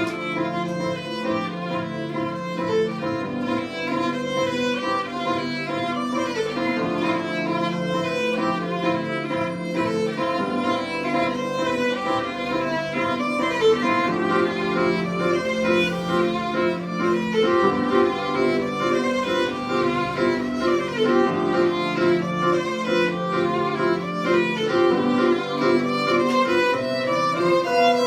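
Live acoustic duo music led by a violin, over an accompaniment of short repeated notes.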